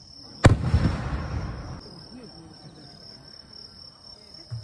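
An aerial firework shell bursting: one sharp, loud bang about half a second in, rumbling away over a second or so. Crickets chirr steadily throughout, and a softer low thump comes near the end.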